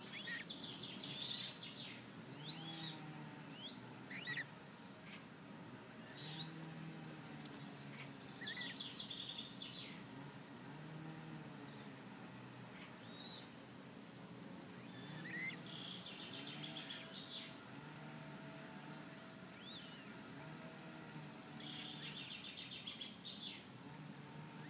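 Small birds calling: short high chirps, and a trilled phrase that comes back about every seven seconds, over a low steady background hum.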